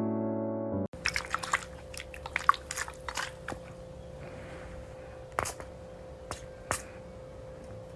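Piano music cuts off about a second in. Then a run of short, sharp clicks and small wet sounds, irregular and spread out, over a steady hum.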